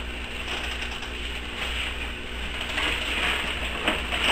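Wrapping paper rustling and crinkling as presents are handled and unwrapped, with a few sharp clicks and knocks near the end, over a steady low hum.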